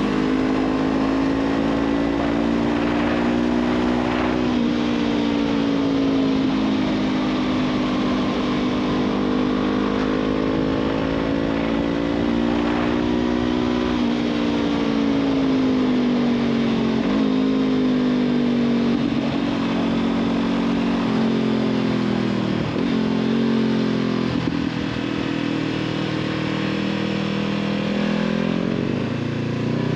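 Honda CB500F's parallel-twin engine through a Black Widow aftermarket exhaust, with the bike under way. The engine note rises and falls gently with the throttle, dips briefly a couple of times, and climbs steeply in revs near the end.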